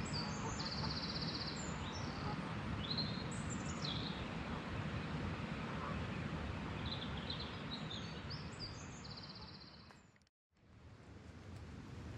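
Outdoor lakeside ambience: a steady low rumble with small birds singing over it, high chirps and two short rapid trills. About ten seconds in, the sound fades out to silence for a moment and fades back in.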